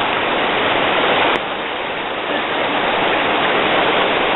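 Steady rush of a river in flood, fast muddy water pouring past fences after a night of heavy rain. A sharp click and a slight drop in level about a second and a half in mark a cut in the recording, and the rush continues after it.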